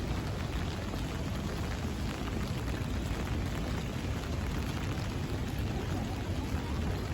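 Steady rain falling, a dense, even patter of drops hitting the ground and nearby surfaces.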